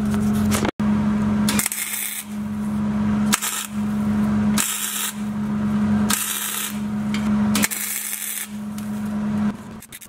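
Hobart MIG welder tacking and welding a mild-steel exhaust pipe onto a catalytic converter: the crackling hiss of the arc starts and stops about five times in short runs. A steady low hum runs underneath and stops near the end.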